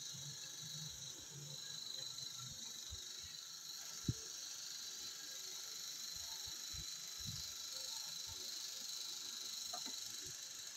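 Steady high-pitched background hiss with a faint low knock about four seconds in.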